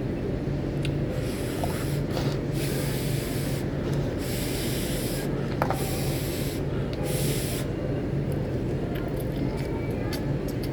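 Noodles being slurped and eaten in a series of hissing bursts, each about a second long, with a click about halfway through. A steady low hum runs underneath.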